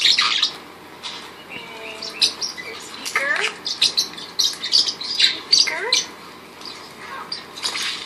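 Parrotlets chirping: many short, high chirps and squeaks, some in quick clusters.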